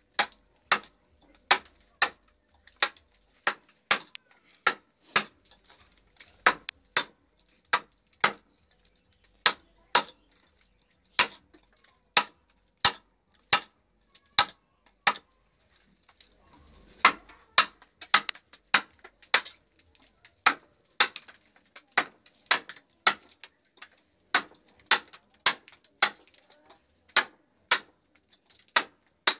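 Hammer blows driving a wood-carving chisel into a block of wood: sharp knocks, about one and a half a second, with a short pause partway through.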